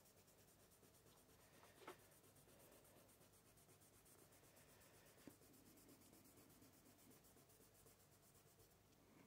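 Near silence: faint rubbing of a fingertip smudging oil pastel on sketchbook paper, with two soft ticks about two and five seconds in.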